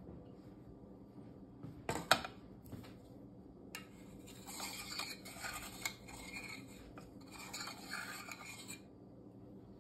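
A couple of sharp clicks about two seconds in. From about four seconds in until near the end there is light, uneven scraping and rubbing.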